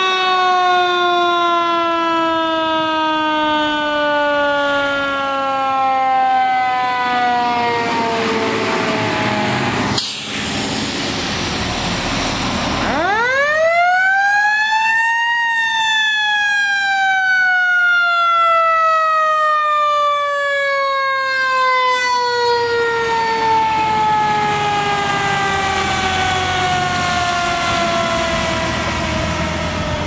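Mechanical Q siren on a fire apparatus, winding down slowly at first. After a sharp click about ten seconds in, it spins up again to a high wail around fifteen seconds in, then coasts down slowly in pitch.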